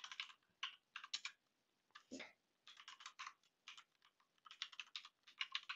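Faint computer keyboard typing: quick runs of keystrokes with short pauses, about two seconds in and again around four seconds in, as a web address and then a password are entered.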